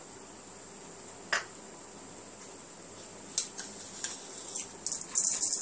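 Steel spoon clinking and scraping in a small plastic bowl while scooping granules: one sharp clink about a second in, then a run of clinks and scraping near the end.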